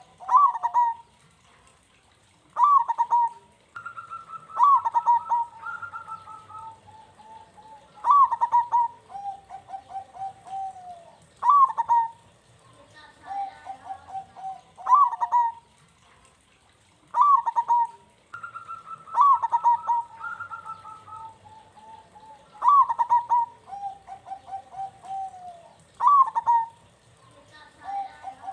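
Zebra doves (perkutut) cooing steadily. A song phrase comes about every three and a half seconds, each opening with a sharp rising-and-falling note and trailing into a run of quick, soft notes. Twice, two birds' phrases overlap at slightly different pitches.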